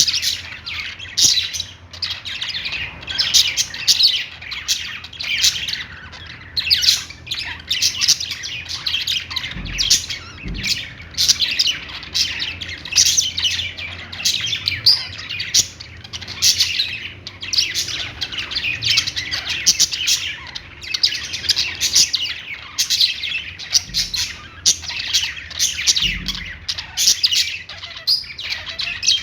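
Budgerigars (budgies) chirping and warbling almost without pause, quick high chirps and squawks running together.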